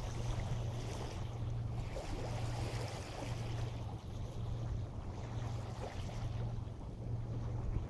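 Waves washing on the shore and wind, swelling and fading every few seconds, over a steady low hum.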